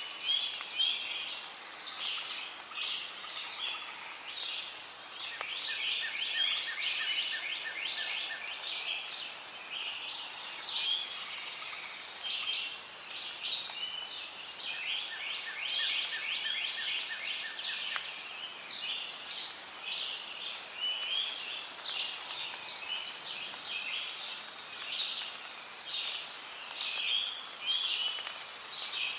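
Rainforest ambience: a dense, continuous chorus of high chirps and trills from birds and insects, with a lower, rapid series of evenly spaced pips near the start and again about halfway through.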